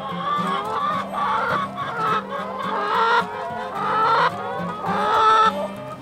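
Flock of brown laying hens clucking, a string of drawn-out calls that rise and bend in pitch, roughly one a second.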